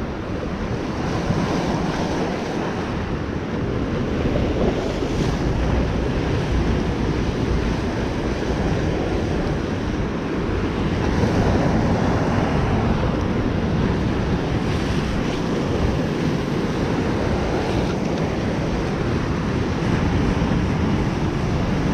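Ocean surf washing and breaking against a rocky shoreline, a steady rush, with wind buffeting the microphone.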